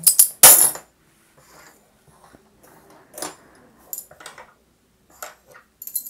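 Small metal objects clattering and clinking on a desktop as they are handled: one loud clatter about half a second in, then a few light, sharp clinks spread through the rest.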